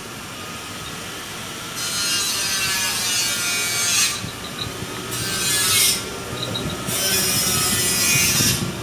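Rasping, rubbing noise in three bursts, each one to two seconds long, as hands work at the motorcycle's wiring harness beside the ignition coil.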